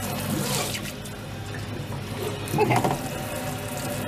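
Kitchen faucet running steadily into a stainless steel sink basin, the water splashing on the steel as food bits are rinsed down the drain.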